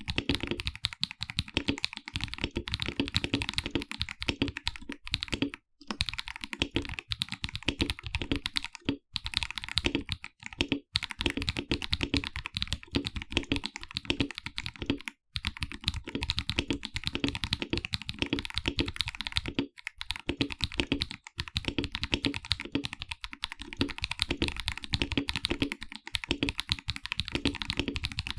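Continuous fast typing on a KBD67 Lite R2 mechanical keyboard with Akko CS Ocean Blue tactile switches: a dense run of keystrokes with deep "thocc"-type bottom-outs, broken by a few brief pauses.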